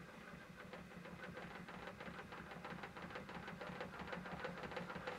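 Japanese plane (kanna) blade rubbed back and forth in quick short strokes on a Naniwa Kagayaki 12000-grit synthetic waterstone, honing a micro bevel. It makes a rhythmic wet scraping that grows louder and stops abruptly at the end.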